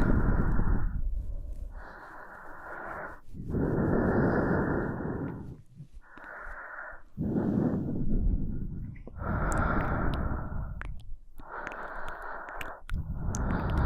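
A woman breathing slowly and audibly close to the microphone, with long breaths in and out alternating steadily, about three full breaths.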